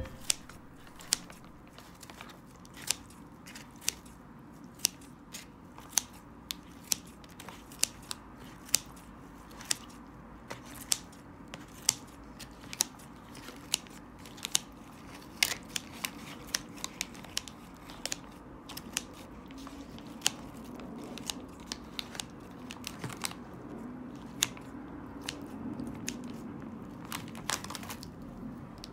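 Kitchen scissors snipping through kimchi, with sharp snips about once or twice a second that grow sparser near the end.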